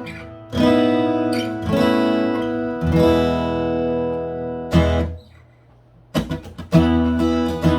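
Taylor 714ce X-braced acoustic guitar being strummed, chords left to ring, about one a second at first. The playing is cut short with a sharp hit about five seconds in, then after a brief pause comes back with a few quick strums and a ringing chord.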